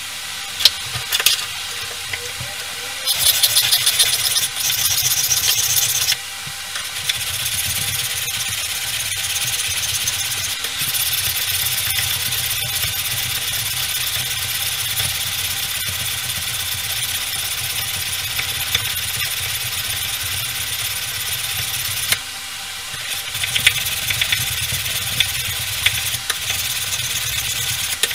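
A small handheld power tool running and grinding against a file-steel blade, with two short dips where it eases off the metal, about a quarter of the way in and again near the end.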